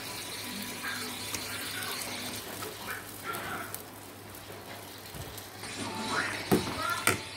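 Metal spoon stirring soup in an aluminium pot, with two sharp clinks against the pot near the end, over a low steady hum and a faint background voice.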